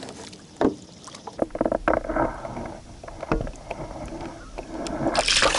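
Water sloshing against a kayak as a catfish is released over the side, with a few knocks on the hull. About five seconds in comes a loud rush of splashing water.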